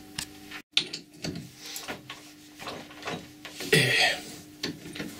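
Metal clicks and knocks from a hand working a four-jaw lathe chuck to free the turned workpiece, with a louder metallic clatter just under four seconds in.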